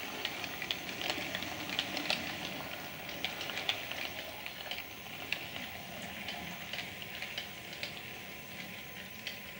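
Model railway train, a G5 tank locomotive and its coaches, running away along the track: irregular light clicks of wheels over rail joints and pointwork over a steady hiss, slowly fading as it goes.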